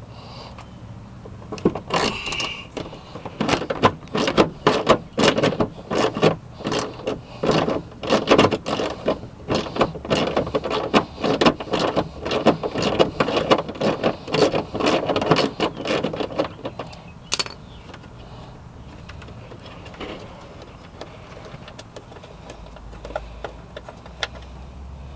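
Rapid small clicks, taps and rattles of hard parts being handled and worked apart, as the power-window motor's gear assembly is taken apart by hand; a last sharp click, then the handling stops.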